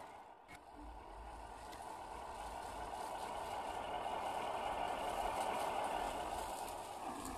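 Electric motor and geartrain of a 1/10-scale RC crawler whining steadily as it drives over mud and dry leaves, growing louder as it comes closer.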